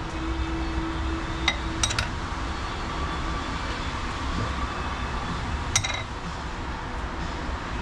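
A few short, sharp metallic clinks, three close together near the start and one more later, over a steady low rumble.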